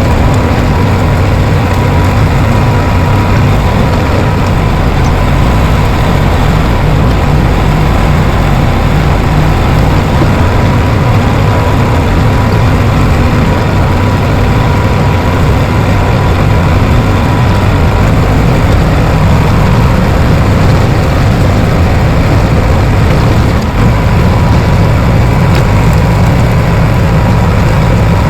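Bulldozer's diesel engine running loud and steady, a deep even drone with no breaks.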